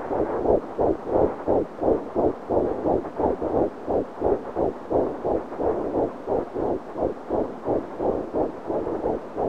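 Fetal heartbeat at 11 weeks of pregnancy, picked up by Doppler ultrasound: a fast, steady run of whooshing beats, about three a second.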